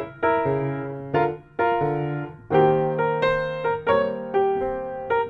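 Background piano music: chords struck about twice a second, each ringing and fading before the next.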